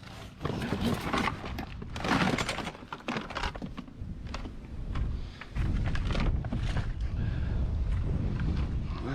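Knocking and rustling of junk being shifted by hand, then a steady low rumble from about five and a half seconds in.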